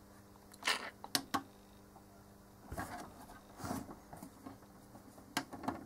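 Clicks of the front-panel push buttons on a Keithley 199 bench multimeter being pressed, a few single clicks early on and two more near the end. In the middle, a longer scuffing of hands handling the instrument.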